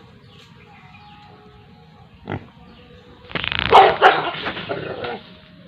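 A farm animal calling: one short call about two seconds in, then a louder, harsh stretch of calling lasting about two seconds.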